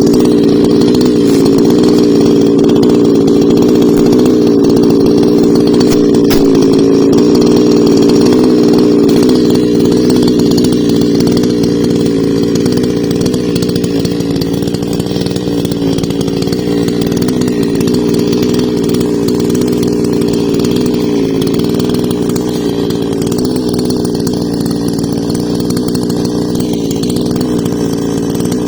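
Husqvarna two-stroke chainsaw running steadily while cutting wood, easing slightly in level about ten seconds in.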